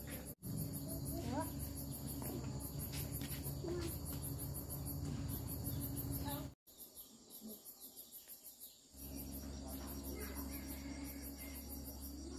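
Insects chirping in fast, evenly pulsed, very high-pitched trains over a steady low background rumble.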